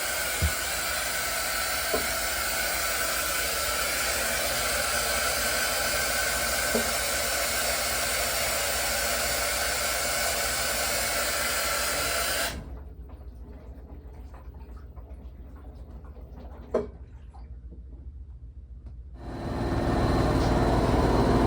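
Samsung front-loading washing machine, newly fitted with a new flange shaft and drum bearings, running with a steady whooshing hiss. About twelve seconds in the hiss drops away to a much quieter stretch with a single click, and near the end a low, steady motor hum comes in as the drum spins, with no bearing rumble.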